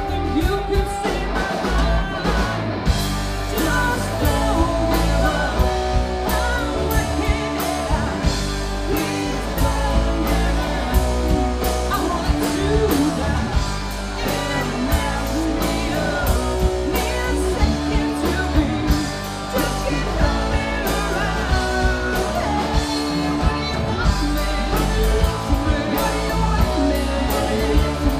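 A band playing a rock song: a singer over electric guitar and a drum kit with a steady beat.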